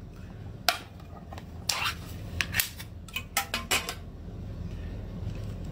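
Ring-pull lid of a metal food can being pried up and peeled off: a series of sharp metallic clicks and scrapes over about three seconds, over a steady low hum.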